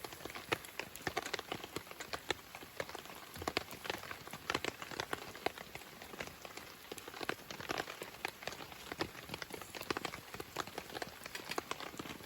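Wood campfire crackling, with irregular sharp pops throughout.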